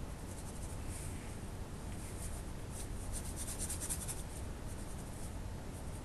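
Ink pen scratching across paper in quick short strokes, in a dense run about three to four seconds in.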